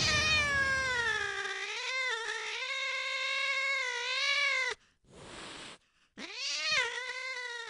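A cat yowling in two long, drawn-out calls. The first falls in pitch and cuts off abruptly after about four and a half seconds. The second starts about a second and a half later, rises, then is held and fades.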